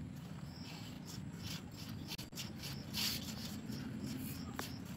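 Hand mixing wheat flour with curd in a stainless steel bowl: faint rustling and scraping of the flour and fingers against the bowl, a little louder about three seconds in.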